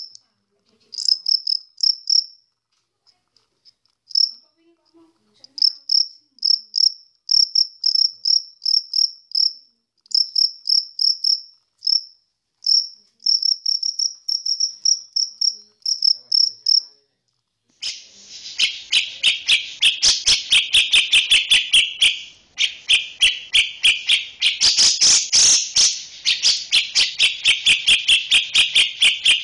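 Cricket chirping in short trains of high, clear pulses with brief gaps between them. About eighteen seconds in it gives way to a louder, harsher call of fast rattling pulses.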